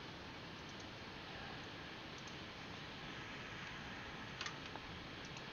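A few faint computer mouse clicks over a low steady hiss, the clearest pair about four and a half seconds in.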